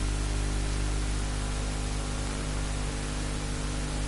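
Steady hiss with a low, even hum underneath, unchanging throughout, with no distinct events.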